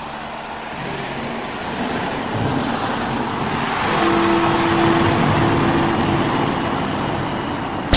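Rushing engine noise that grows steadily louder, broken off at the very end by the start of a sudden loud explosion.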